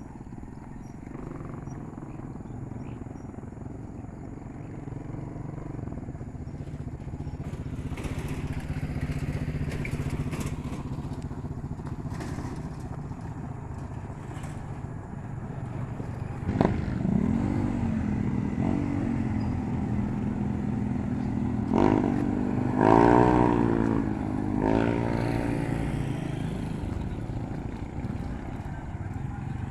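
A vehicle engine running and getting louder over the first ten seconds. Its revs rise and fall sharply about halfway through and again, loudest, a little past two-thirds of the way.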